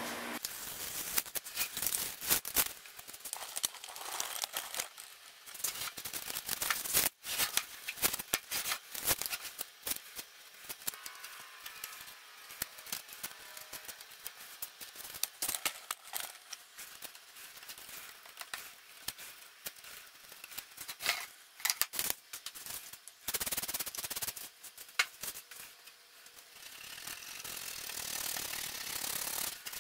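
Paper pattern being picked and peeled by hand off a scroll-sawn wooden fretwork panel: irregular small crackles, rips and fingernail scratches of paper on wood. Near the end it turns into a steadier rubbing as a hand sweeps across the panel.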